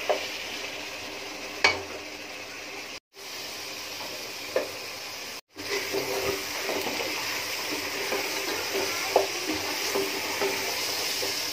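Beef pieces in spiced masala sizzling in a pot while being stir-fried with a spatula, with now and then a sharp click of the spatula against the pan. This is the koshano stage of a beef bhuna, where the meat is browned in its masala. The sound cuts out briefly twice, and the sizzle is louder after the second gap.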